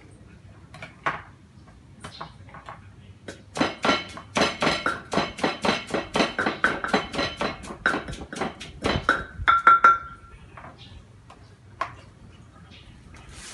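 Wooden pestle pounding in a clay mortar, crushing chillies and tomatoes for papaya salad: a fast run of knocks, about four or five a second, each with a short ring from the clay, starting a few seconds in and stopping near the end. A few separate knife taps come before and after the pounding.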